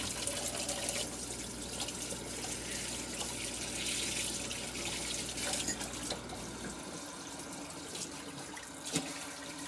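Kitchen faucet running hot water into a stainless steel sink, a steady splashing hiss, left running until the water heats up. A low hum underneath stops about two-thirds of the way through, and there is a faint knock near the end.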